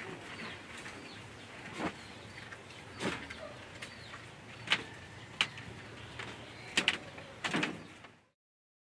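Scattered knocks and clacks, sharpest and loudest late on, as a person moves about and handles things in a bamboo hut, with faint bird chirps behind. The sound cuts out suddenly about eight seconds in.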